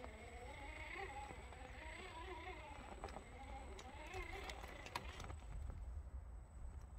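Axial Wraith Rockracer RC crawler's electric motor and gears whining faintly, the pitch wavering up and down with the throttle as it climbs rock, with a few sharp clicks of the tyres and chassis on the stone. The whine stops about five seconds in.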